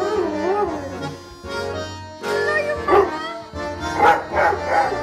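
Rottweiler howling: a long wavering howl that rises and falls in pitch, dropping away briefly before louder, sharper yowls about three and four seconds in.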